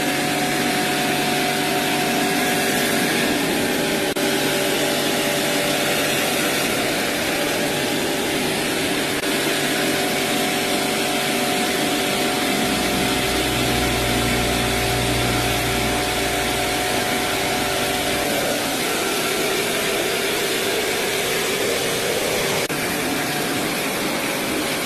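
Electric pressure washer's motor running steadily while its jet sprays water, a continuous hiss over a steady machine whine, with a deeper hum added for several seconds midway.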